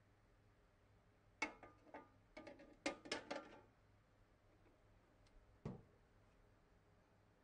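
Ninja AG301 indoor grill's removable parts clattering as they are handled: a knock about a second and a half in, then a run of clicks and rattles as the crisper basket goes into the cooking pot, and one knock near the end as the hood is shut.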